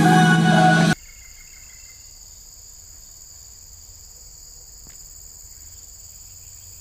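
Background music cuts off about a second in, leaving a steady, high-pitched insect chorus that goes on unbroken on several pitches at once.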